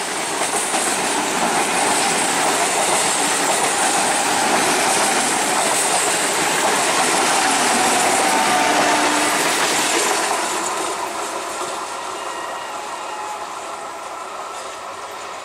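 Electric multiple-unit local train running past close by at speed, a dense rush of wheel and rail noise. It dies down gradually after about ten seconds.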